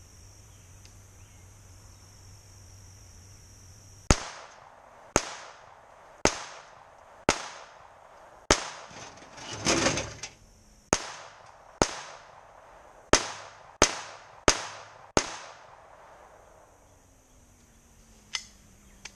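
Eleven shots from a GSG Firefly .22 LR semi-automatic pistol, starting about four seconds in at roughly one a second, each a sharp crack with a short ring-off. Midway through there is a longer, swelling burst of noise between two of the shots.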